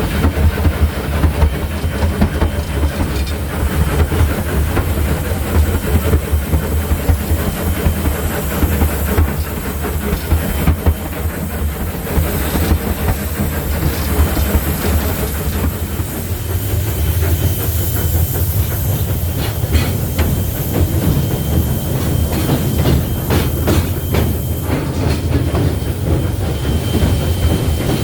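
Steam locomotive Polson Logging Co. 70 heard from inside its cab while under way: a steady low rumble of the engine and wheels on the rails, with steam hissing through much of it. In the last several seconds, clanks and clicks are heard over the rumble.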